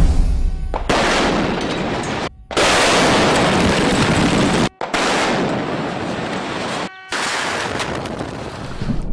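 Explosive charges bringing down an old concrete arch bridge: blasts and a heavy, noisy rumble, repeated in about four successive takes. Each take is cut off abruptly and the next starts straight away. For about the first second, drum-heavy music plays.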